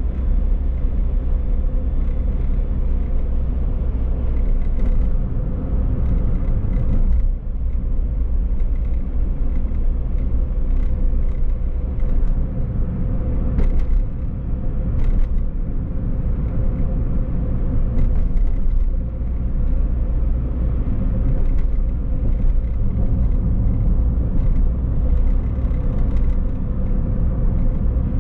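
Toyota car driving on town streets: steady engine and road rumble with a low hum, broken by a few short clicks and a brief dip about seven seconds in.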